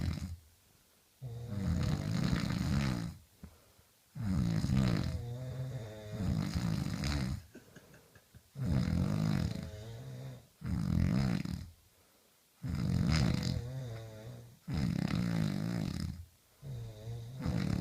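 Two people snoring loudly in turn: about eight long snores, one every second or two, with short quiet gaps between them.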